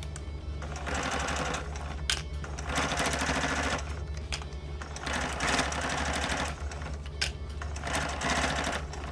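Domestic electric sewing machine stitching through faux fur and microsuede in four short runs of rapid needle strokes, stopping and starting as the seam is guided. A couple of sharp clicks come between runs.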